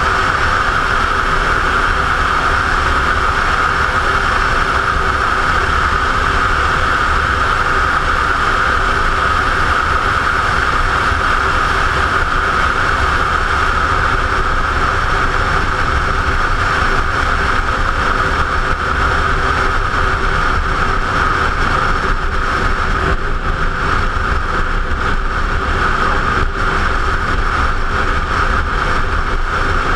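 Steady wind roar over a helmet-mounted camera while a Ducati motorcycle's L-twin engine runs at an even cruising speed underneath, with no revving or gear changes.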